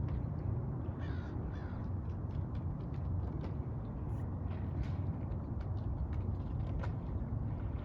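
Steady low rumble with two short bird calls about a second in, and scattered faint clicks.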